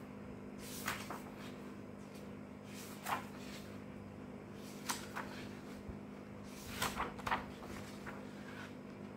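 Paper pages of a paperback activity book being turned by hand: several short rustling swishes a second or two apart, with a quick double or triple flick near the end.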